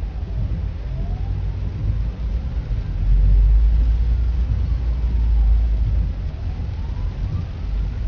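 Ambulance siren on a slow wail, sliding down and up in pitch twice, heard faintly through a closed car window. A low rumble swells under it around the middle and is the loudest sound.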